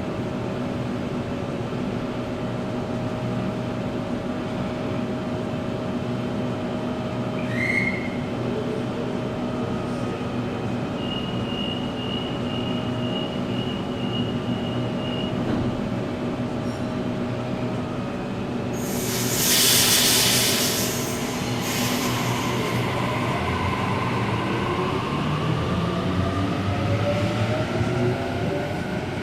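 Electric passenger train at a station, its motors humming steadily. About two-thirds of the way in there is a loud burst of air hiss, then the traction motors whine, rising in pitch as the train accelerates away.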